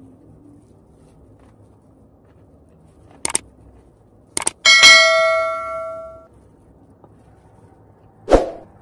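Sound effects of a subscribe-button overlay: two mouse clicks about a second apart, then a notification bell dings and rings out for about a second and a half. A single thump follows near the end.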